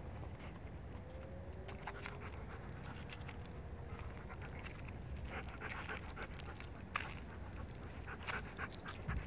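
Siberian husky panting while walking at heel, with scattered sharp clicks and taps from about halfway through, one louder click near the middle.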